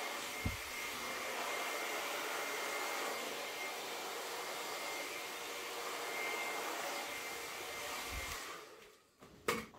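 Blow dryer running with a steady rush of air and a faint high whine, blowing fluid acrylic paint across a vinyl record. It cuts out near the end, followed by a sharp click.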